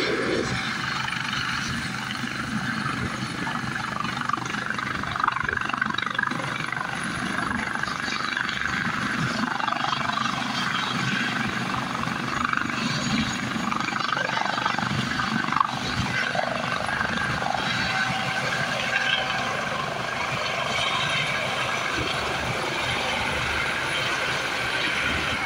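Eurocopter AS365 Dauphin helicopter with twin turboshaft engines running at takeoff power, the turbines and rotor making a steady whine and hum as it lifts off the pad and climbs away.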